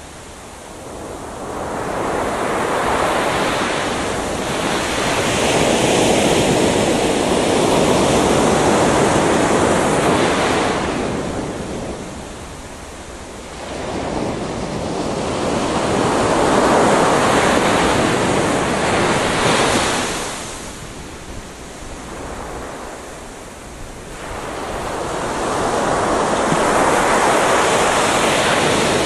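Gentle ocean waves washing onto a beach, the surf swelling and receding in slow surges, about three in the span.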